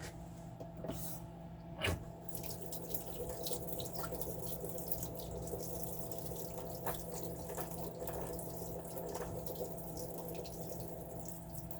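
Kitchen tap running hot water into a sink, with a knock about two seconds in and small clatters under the flow.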